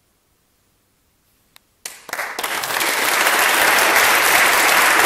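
A near-silent pause with a faint click, then an audience breaks into applause about two seconds in, quickly growing into steady clapping.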